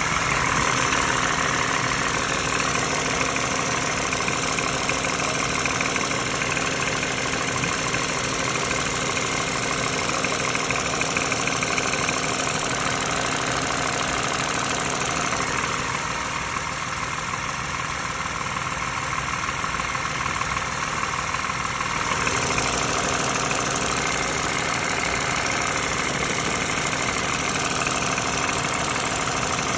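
A 2013 Lexus RX350's 3.5-litre V6 engine idling steadily with a rattle whose cause the owner does not know. The sound thins for several seconds about halfway through, then returns.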